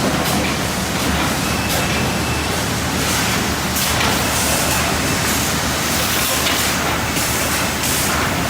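Sawmill machinery running with a steady loud noise and a few faint knocks scattered through it.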